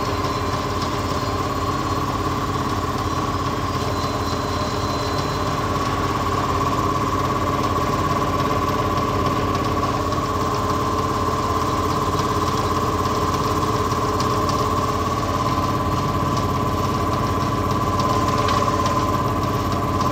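A workshop machine's electric motor running steadily, a steady whine over a fast, low pulsing.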